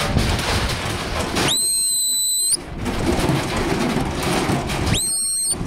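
Two shepherd's whistle commands to a working sheepdog: a long, steady, high whistle that rises into its note about one and a half seconds in, and a shorter one near the end. Wind noise on the microphone runs underneath.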